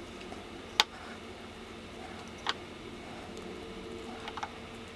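A few sharp plastic clicks from handling a 3D-printed gearbox while its gears are greased with a cotton swab: one loud click about a second in, another near the middle, and a quick double click near the end, over a steady low hiss.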